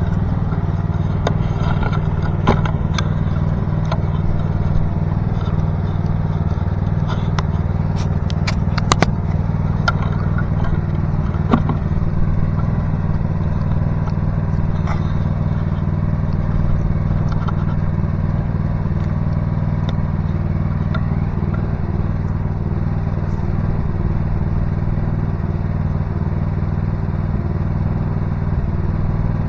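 Mini excavator engine running steadily, with scattered metallic clanks and clicks during the first dozen seconds or so.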